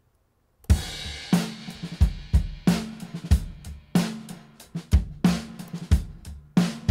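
Recorded acoustic drum kit played back on its own, starting about a second in: kick, snare and hi-hat in a steady groove, heard through a studio drum-bus compressor.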